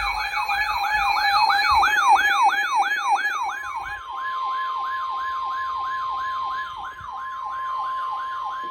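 A siren sweeping quickly up and down, about three times a second. About three and a half seconds in, a steady alert tone joins it: the NOAA Weather Radio warning alarm tone that comes before a National Weather Service warning broadcast.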